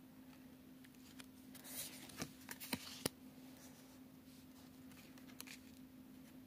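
Oracle cards being handled: a short cluster of soft clicks and rustles as one card is slid off to show the next, about two seconds in, with a few lighter touches later, over a faint steady hum.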